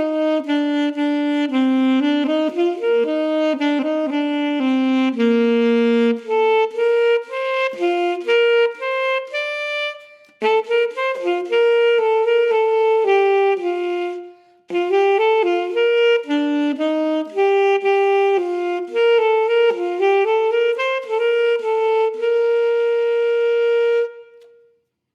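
Solo instrumental music: a single wind instrument plays a melody of held notes in phrases, pausing briefly about ten and fourteen seconds in, and closing on a long held note.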